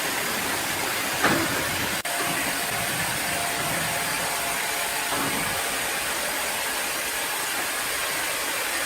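Steady hiss of running machinery, with a brief knock about a second in.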